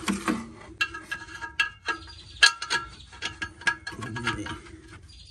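Oxygen sensor being threaded by hand into its bung in a stainless steel catalytic converter: a run of short, small metallic clicks and squeaks, some with a brief ring.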